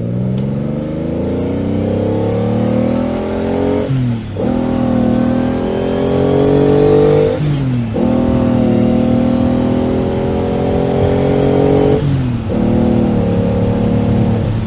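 Car engine revving: the pitch climbs steadily, drops sharply and climbs again three times, then holds near the end before falling.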